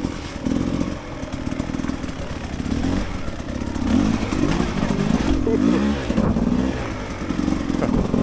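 Dirt bike engine running as it is ridden, its pitch rising and falling again and again with the throttle.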